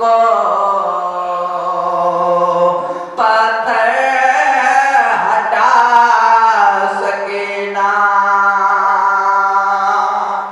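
A young man's voice chanting a noha (Shia mourning lament) unaccompanied into a microphone, in long drawn-out notes that slide in pitch, with a brief pause about three seconds in.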